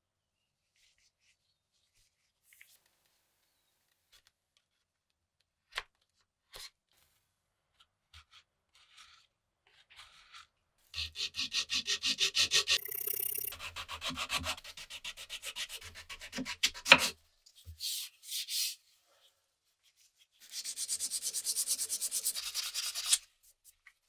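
An M1 Garand bayonet grip panel rubbed back and forth on sandpaper laid over a glass plate, being sanded flat: quick, evenly repeated scraping strokes in two spells, the first starting about ten seconds in and the second near the end. Before the sanding there are only a few faint taps, and a single sharp knock falls between the two spells.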